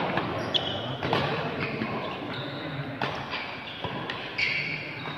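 Badminton rally: several sharp racket hits on the shuttlecock, with short high squeaks of shoes on the court and voices chattering in the background.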